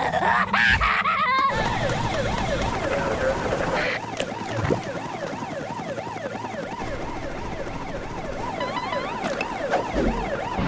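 Cartoon police siren wailing in fast, repeated up-and-down sweeps, starting about a second and a half in and running on. It is the siren of a police helicopter.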